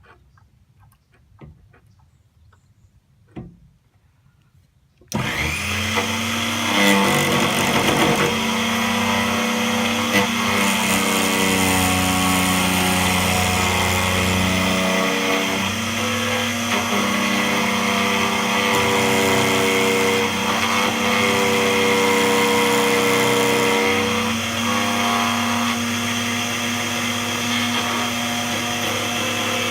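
A few faint clicks, then about five seconds in a DEFU 368A key cutting machine's motor switches on abruptly and runs steadily with a hum and a cutting noise over it. Its cutter is milling the track of a laser-cut Honda key blank while the original key is traced, and the pitch wavers a little as the load changes.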